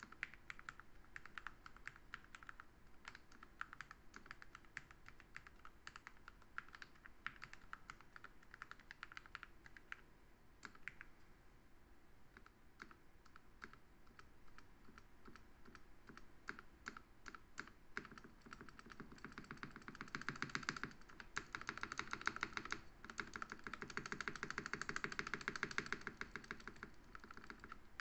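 Typing on a Gamakay 87 mechanical keyboard fitted with TTC Orange linear switches lubed with 205g0, a fast continuous run of keystrokes. The typing thins out a little near the middle, then gets faster and louder over the last third.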